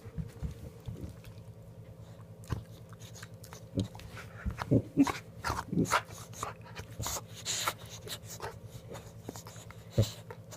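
A boxer dog tussling with a cat: short whimpering and grunting sounds among scattered knocks and scuffles, over a steady low hum.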